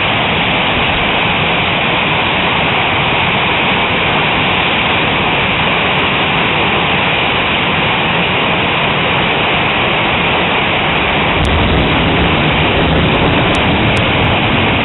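A heavy hailstorm: hailstones and rain pelting down in a dense, steady roar. A lower rumble swells in about eleven seconds in.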